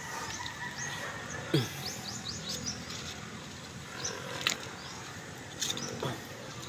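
Outdoor ambience with a few quick high bird chirps, and twice a short low animal call that falls in pitch.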